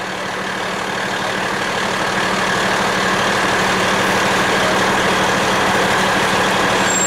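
Fire truck's engine running steadily as the truck rolls slowly, heard from inside the cab, with a steady hum that grows gradually louder.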